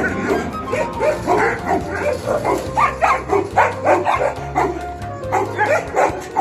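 Dogs barking and yipping over and over, two or three short barks a second, over background music.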